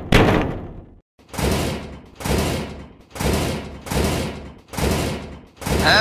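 A series of seven heavy bangs, about one a second, each starting sharply and dying away over most of a second: sound effects in an animated vehicle cartoon.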